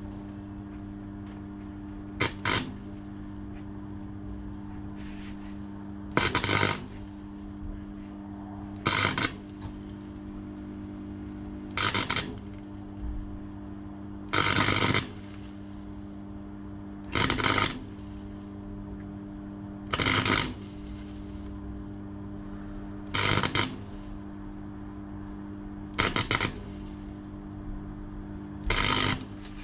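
Arc welder laying short stitch welds to fill a gap in a car's suspension mount: about ten crackling bursts, each under a second or so, every few seconds, over a steady low hum.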